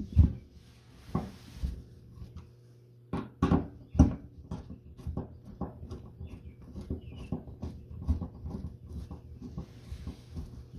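Knocks and clicks of hand tools working the fuel sending unit's mounting screws down in a star pattern: a few loud knocks in the first four seconds, then a run of small, quick clicks several times a second.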